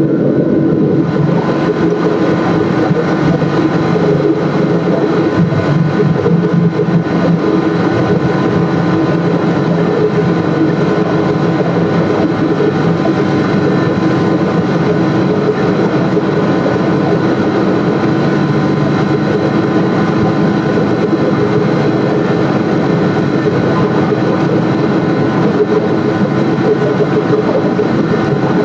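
A machine running steadily with a constant, loud engine-like hum made of several steady tones, unchanging throughout.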